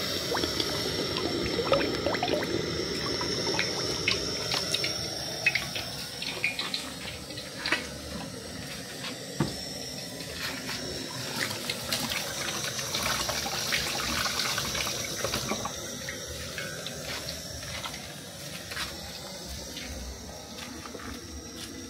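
Groundnut oil pouring from a plastic bottle into an aluminium pot, a gurgling stream in the first few seconds. It is followed by a steady rushing, water-like noise with scattered light knocks and clicks.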